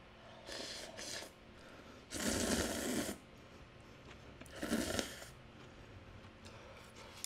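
A person slurping thin somen noodles up from a bowl of soup: three slurps, the loudest and longest about two seconds in, a shorter one near the five-second mark.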